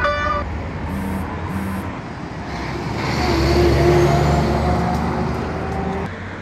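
Road traffic: a motor vehicle's engine swells and fades as it passes, loudest about halfway through, over a steady low engine rumble. A short horn-like tone ends right at the start.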